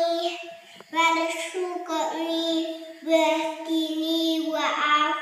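A four-year-old girl chanting her Arabic salat recitation in a sing-song voice, long notes held on one pitch, in three phrases with short breaks between.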